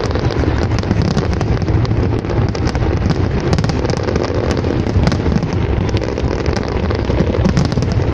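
Fireworks going off: many quick crackles and pops over a continuous dense rumble.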